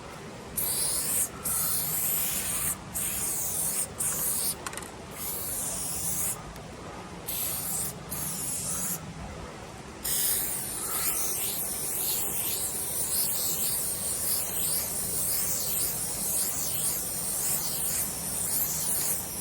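Aerosol spray can of gold paint hissing as graffiti is sprayed: a run of short spurts, then one long continuous spray from about halfway through.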